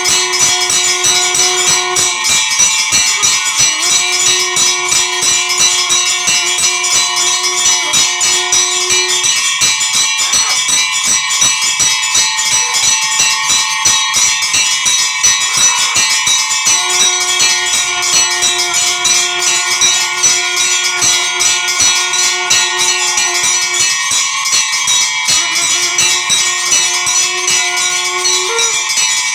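Temple bells ringing rapidly and without pause, over a steady held note that sounds in long stretches of several seconds with short gaps and rises a little in pitch near the end.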